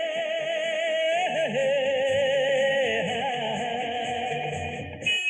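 Music: several held instrumental notes sounding together with a wavering vibrato, cutting off abruptly near the end.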